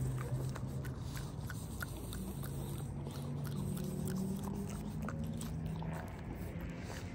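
French Bulldog chewing and crunching a raw bone-in chicken piece, a run of short irregular crunches and wet bites, over a low steady hum.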